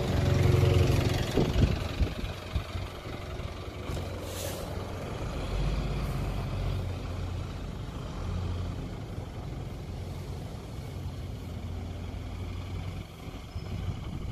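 Diesel bus engine passing close by and pulling away, followed by the low, steady running of buses in the depot yard. A short hiss of compressed air comes about four seconds in.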